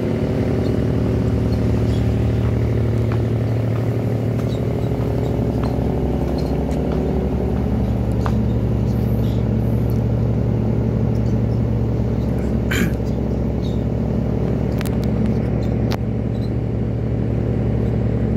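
A ship's engine running on passage, heard on deck as a steady low hum made of several held tones, with faint wash and wind noise over it.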